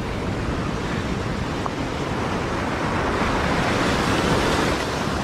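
Ocean surf breaking and washing over a coastal rock ledge, a steady rushing hiss that swells over the first few seconds.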